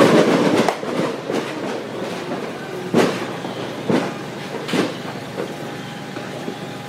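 Fireworks going off: a dense burst of rapid crackling pops in the first second, then three single bangs about three, four and five seconds in.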